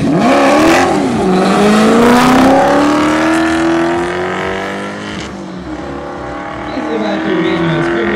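Two cars launching off the start line of a drag race, engines revving hard and climbing in pitch, with a gear shift about a second in. The engine sound eases off as the cars pull away down the strip, then rises again near the end.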